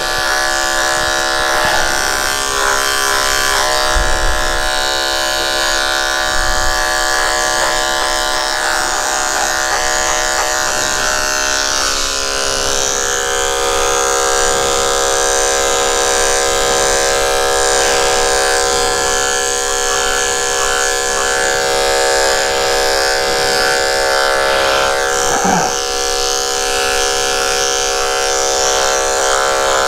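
Electric pet-grooming clippers running with a steady hum as they are worked through a Bichon Frise's matted coat, shaving the mats out.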